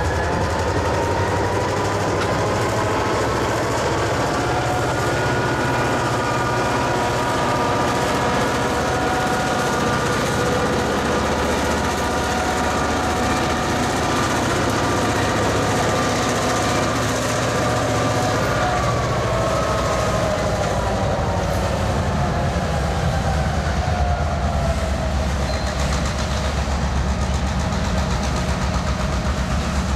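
Diesel freight locomotives (a South Shore unit and a GMTX unit) pulling tank cars past at low speed. Their engines run with a steady rumble and a layered whine that falls in pitch about two-thirds of the way through as the train moves off.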